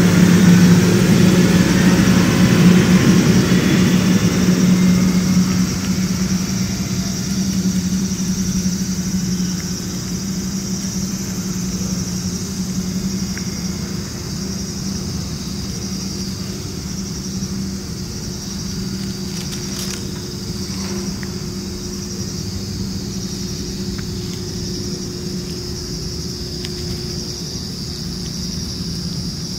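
A motor vehicle engine hums steadily at a low pitch, fading over the first ten seconds and then holding level. A faint high buzz pulses above it about once a second.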